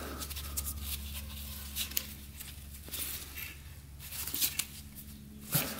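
Rubber coolant hose being worked by a gloved hand onto an engine's water pump outlet: soft rubbing and rustling with a few small clicks, over a steady low hum.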